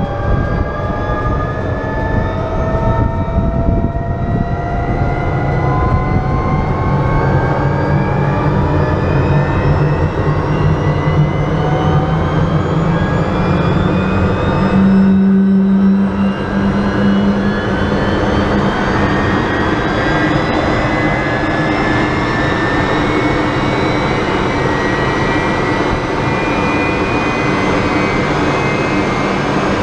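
The Viper 535 turbojet of a BAC Strikemaster starting and spooling up, heard from the cockpit: a whine that climbs slowly and steadily in pitch over a dense rumble. About halfway through, the sound briefly changes and a low hum swells for a couple of seconds.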